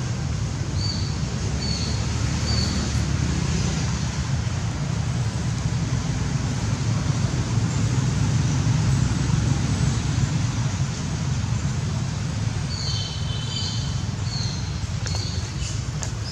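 Steady low rumble of outdoor background noise with a constant hiss. A few short high chirps come in quick succession near the start and again near the end.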